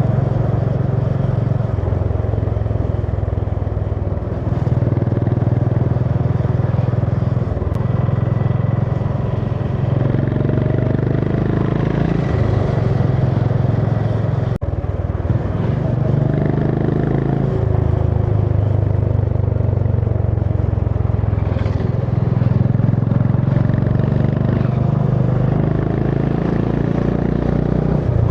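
Honda CB350 H'ness motorcycle's single-cylinder engine running under way. Its low exhaust note shifts with the throttle a few times.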